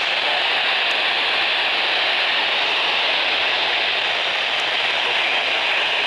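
Steady, loud hiss of radio static from a receiver with no signal coming through.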